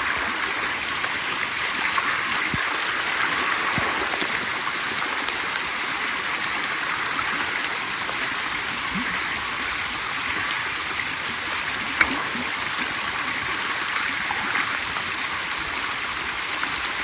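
Steady hiss of water, even and unbroken, with one sharp click about twelve seconds in.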